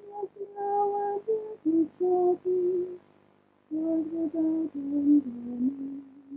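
A woman's voice singing a slow, unaccompanied chant: one note held at a time and moving in small steps, with a pause for breath about three seconds in and a phrase that steps downward near the end.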